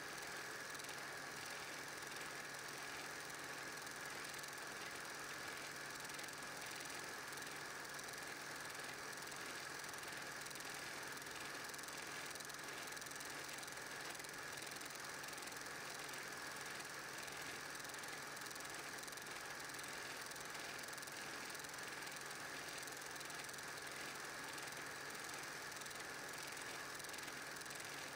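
Steady whirr and rapid mechanical clatter of a running 8mm film projector, with no other sound.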